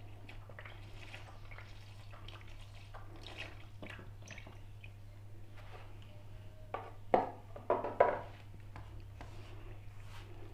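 Milk pouring from a carton into flour in a steel bowl, with a few louder glugs about seven to eight seconds in, then fingers squishing through the wet flour near the end. A steady low hum runs underneath.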